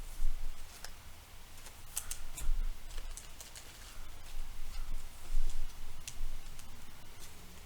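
Trading cards being handled and slid into plastic sleeves: irregular light clicks and crinkles of plastic and card.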